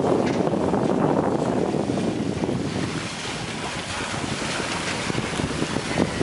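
Wind buffeting the microphone aboard a Catalina 375 sailboat under sail, with water washing along the hull. The rush is loudest for the first few seconds and then eases a little; a single sharp tick comes near the end.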